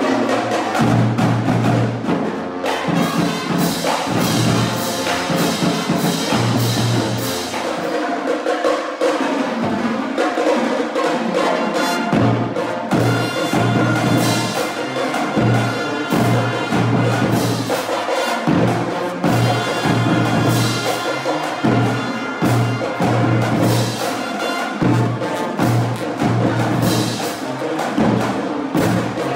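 High school marching band playing: brass (trumpets, saxophones, sousaphones) over drums keeping a steady beat, with strong low bass notes.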